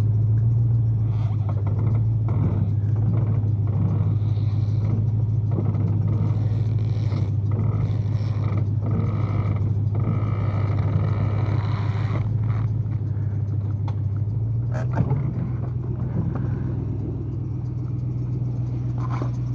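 A steady low machine hum with scattered clicks and knocks over it. The hum's pitch steps up slightly about three quarters of the way through.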